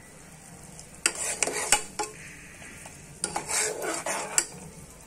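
Steel spoon stirring and scraping around a steel saucepan of boiling sugar syrup, in two short bouts with sharp clinks of spoon on pan. A faint sizzle of the syrup cooking down runs under it.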